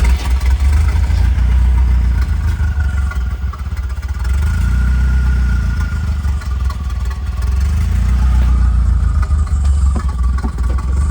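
Turbocharged Mazda B2200 2.2-litre four-cylinder engine running just after being started on a newly installed Microsquirt ECU: a steady low rumble whose level swells and eases every few seconds.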